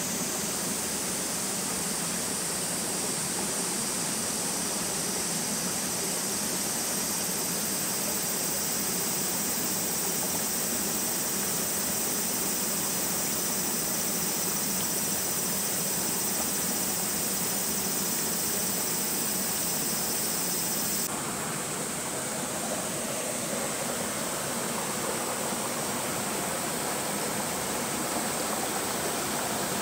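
Steady rushing of flowing water from a stream or waterfall, an even hiss. About two-thirds of the way through it changes abruptly, the highest hiss dropping away.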